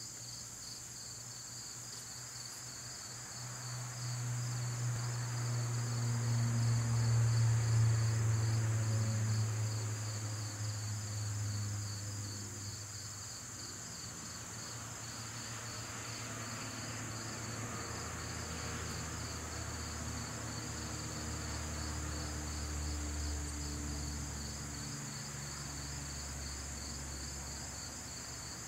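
Crickets and other insects trilling steadily, one call pulsing rapidly. A low hum swells in about four seconds in, is loudest around seven to eight seconds, and eases off after about twelve seconds.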